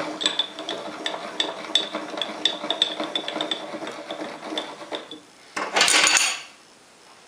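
Steel saddle of a homemade lathe travelling along its bed on the leadscrew, with a quick, irregular metallic clicking and rattling over a faint steady hum for about five seconds. Near the end comes one short, loud hiss of compressed air.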